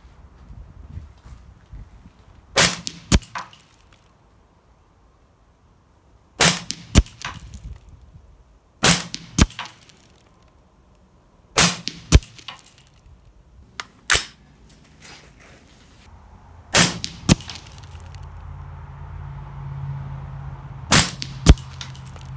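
Suppressed shots from a 300 AAC Blackout AR pistol fitted with a Dead Air Sandman-L suppressor, fired slowly one at a time a few seconds apart. Each shot is followed about half a second later by a second, sharper crack.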